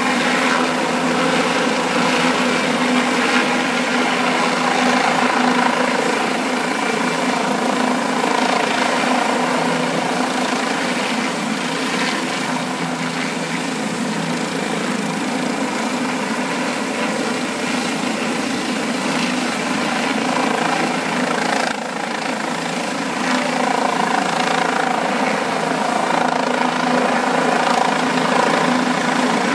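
Bell helicopter hovering with a heavy load slung on a long line: a steady drone of rotor and engine with a steady pitched hum.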